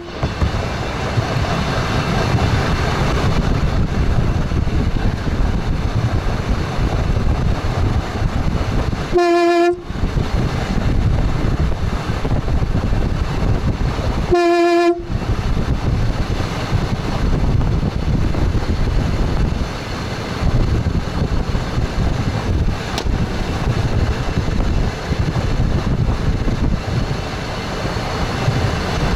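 Express train running, heard from the front cab: a steady rumble of wheels on the rails. Two short blasts of the train's horn come about a third of the way in and again about five seconds later.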